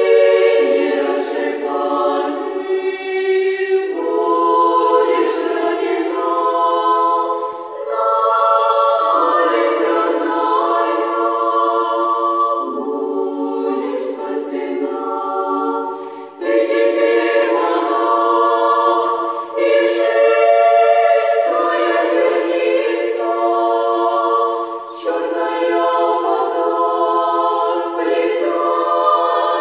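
Women's choir singing a cappella in several parts: held chords in sung phrases, broken by short breaths every few seconds.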